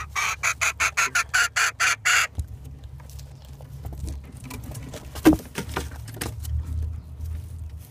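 Chickens crowding close in a coop: a rapid run of about a dozen scratchy beats in the first two seconds, then scattered pecks and taps, one of them sharp, over a low rumble.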